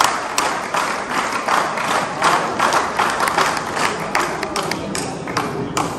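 Spectators applauding, a crowd's many quick hand claps, thinning out near the end.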